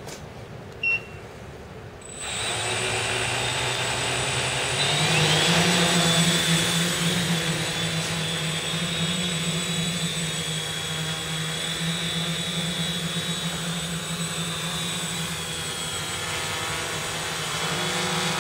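A short beep about a second in, then the electric motors of a homemade quadcopter spin up about two seconds in. They rise in pitch as it throttles up and takes off, and settle into a steady high whine over a lower hum as it climbs and hovers.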